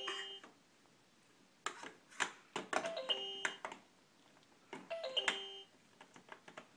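Electronic fridge-magnet alphabet toy playing a short falling chime of beeps three times, with clicks of the plastic magnet pieces in between.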